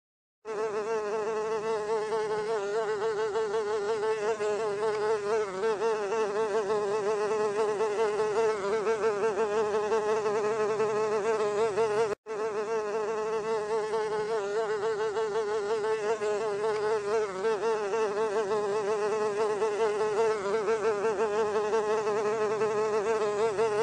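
Housefly wings buzzing: a loud, continuous buzz whose pitch wavers quickly. It starts about half a second in and breaks off for a split second about halfway through.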